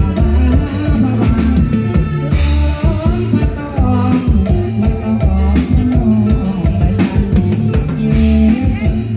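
Band music with a steady drum-kit beat and a heavy bass line, with a melody line over it.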